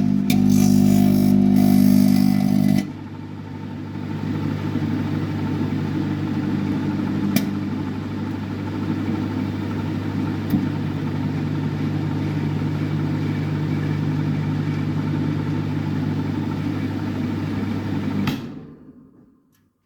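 Modified microwave oven running at full power: a steady electrical hum and buzz with a couple of faint clicks, fading out near the end. For about the first three seconds a louder, tonal layer sits on top of it.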